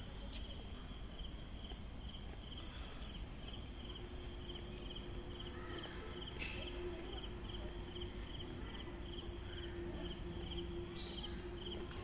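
Insects chirping: a steady high buzz with a rhythmic chirp repeating about two to three times a second. A faint low steady hum comes in about four seconds in.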